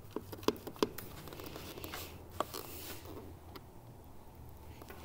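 Pliers gripping and tugging at the old communication wires inside a plastic LiFePO4 battery case, trying to pull them free. A few sharp clicks of metal and wire come in the first second, another near two and a half seconds, and a short scraping noise between two and three seconds in.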